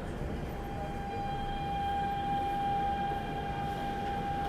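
Daegu Metro Line 1 train running, heard from inside the car: a steady rumble of the wheels on the track, with a steady high electric whine from the traction equipment coming in about a second in.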